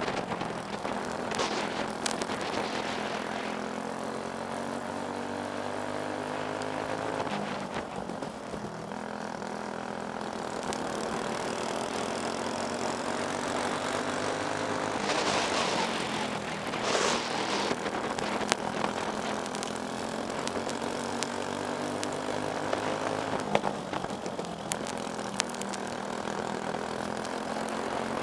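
Briggs & Stratton Animal single-cylinder four-stroke kart engine running at racing speed, its pitch rising and falling with the throttle through the corners. A couple of short rushes of noise come about halfway through.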